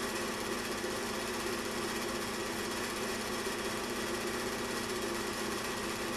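Home-movie film projector running: a steady whir with a fast, even clatter.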